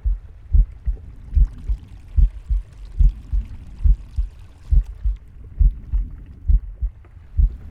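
Heartbeat heard close up: a steady lub-dub, about 70 beats a minute, each loud low thump followed by a softer second one. A faint rushing noise rises behind it after about a second and a half and fades near the end.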